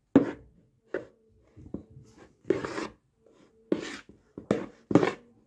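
Slime being worked by hand or stirred in a container: a run of irregular scraping and rubbing strokes, some short and sharp, some drawn out.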